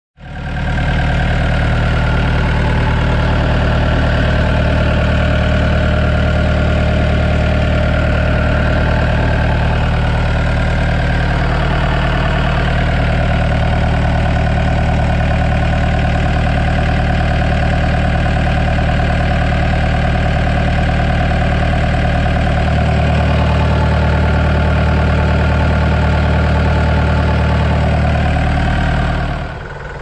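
2005 Komatsu D21A-8 bulldozer's diesel engine idling steadily, heard close up at the open engine bay. It gets quieter just before the end.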